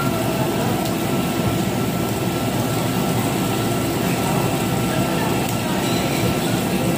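Steady rushing air noise of a tabletop barbecue grill's overhead exhaust duct drawing air, with a faint steady whine through it.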